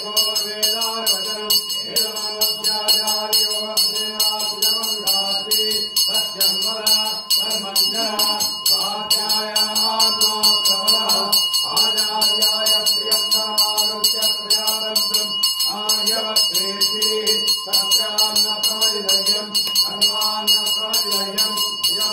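A brass puja hand bell rung rapidly and without pause, over a man's voice chanting.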